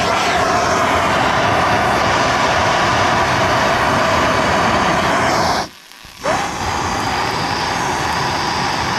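Hand-held gas torch burning with a steady, loud rushing hiss as its flame heats a metal engine thermostat to test whether it opens. The sound cuts out for about half a second around six seconds in, then resumes a little quieter.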